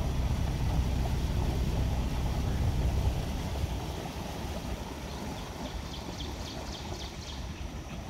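Low rumble of the boat under way, with wind on the microphone, easing about three seconds in. Then a bird gives a rapid series of short high chirps, about nine in a row.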